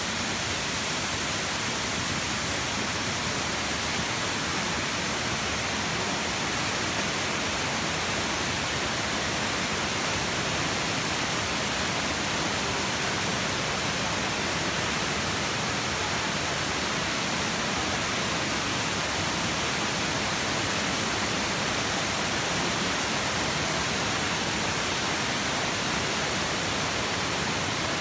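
Waterfall: falling water rushing steadily, an even noise spread across low and high pitches with no break or change.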